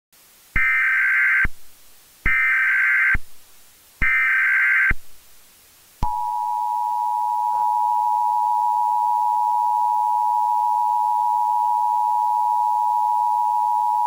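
Emergency Alert System broadcast tones: three short bursts of SAME digital header data, each under a second long, then the steady two-tone EAS attention signal, which starts about six seconds in.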